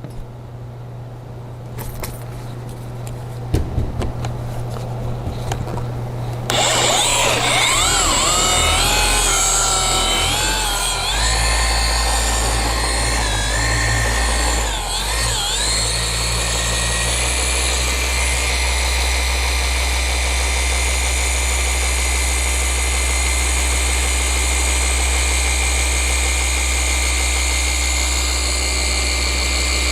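Flex forced-rotation polisher starting up about six seconds in and running on the car's paint, its whine wavering in pitch at first, then steady. Before it starts, only a low hum.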